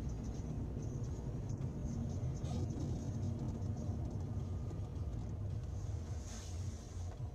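Steady low rumble of a car driving, heard from inside the moving car: engine and road noise.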